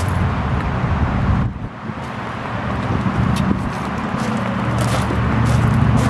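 Truck engine idling steadily, with a few clunks as the tilting hood is swung open.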